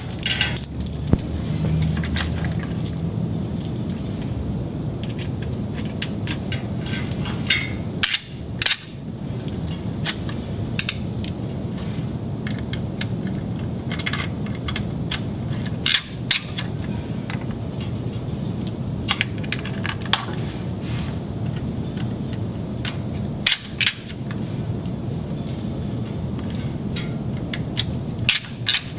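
Scattered sharp clicks and taps of fiber-optic connectors and cable tails being handled and clicked into a patch blade's ports, over a steady low background noise.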